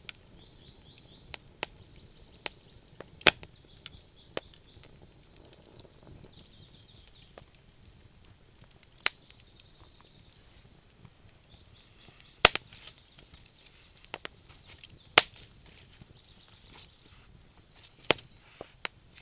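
Wood fire crackling: irregular sharp pops and snaps, a few much louder than the rest, over faint high chirping in the background.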